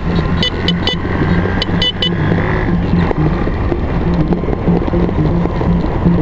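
Off-road motorcycle and quad engines running steadily, with background music and a few sharp clicks in the first two seconds.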